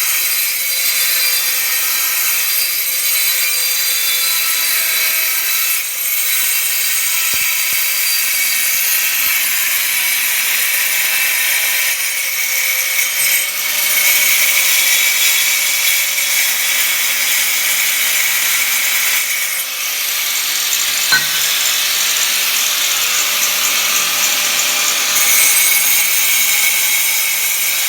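A power tool cutting porcelain stoneware tile: a loud, steady, high grinding noise that shifts in tone a few times, with a single sharp click about 21 seconds in.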